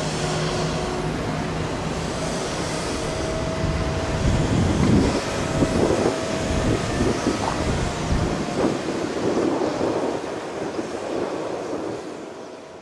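A passenger train running on the line, with a steady mechanical hum and, from about four seconds in, louder rumbling and uneven knocks of its wheels on the track, fading out near the end.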